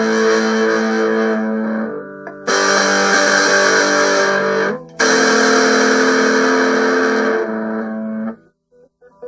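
Guitar chords strummed and left to ring, three in a row each lasting about two to three seconds, stopping about eight seconds in with only a few quiet notes after.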